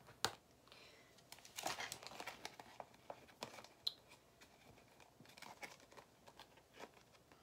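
Faint crinkling and rustling of a Barbie accessory pack's plastic packaging as it is cut with scissors and pulled open, with scattered sharp clicks.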